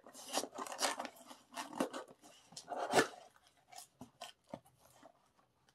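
A white cardboard mailer box being worked open by hand: flaps scraping and crackling in short bursts, with one sharp snap about three seconds in.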